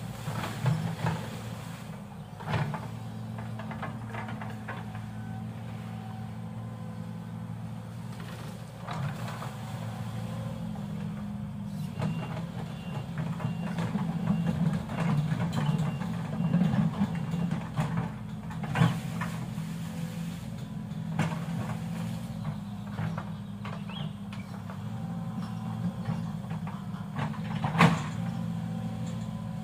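Excavator's diesel engine running steadily under work, with occasional sharp metallic clanks, the loudest near the end.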